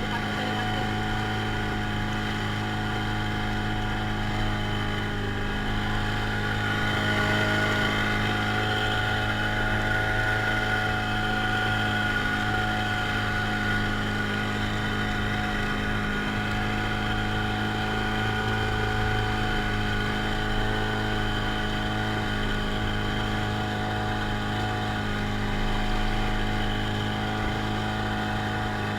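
Engine of a traditional jukung fishing boat running steadily underway, an even drone that holds the same pitch throughout.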